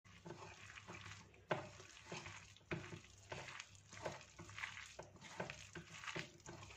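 Hand mixing cauliflower florets with gram flour, spices and a little water in a glass bowl: faint, irregular wet crackling and rustling as the damp mixture is squeezed and turned.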